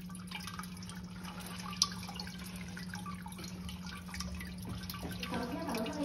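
Small solar fountain's water spraying and dripping back onto the solar panel and into its basin, with a steady low hum underneath and a single sharp click about two seconds in.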